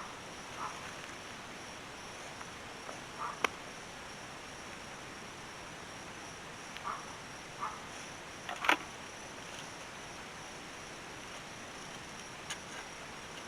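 Hand-digging in compacted, rocky soil: a few short scrapes and two sharp knocks, the louder about nine seconds in, over a steady hiss with a thin, high insect buzz.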